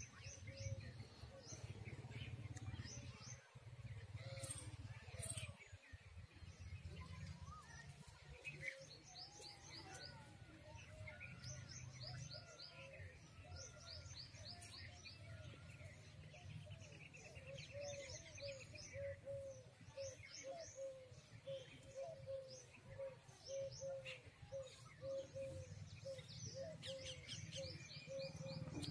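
Small birds chirping in quick, high, falling trills, with a short lower note repeated steadily through the second half; a faint steady low rumble underneath.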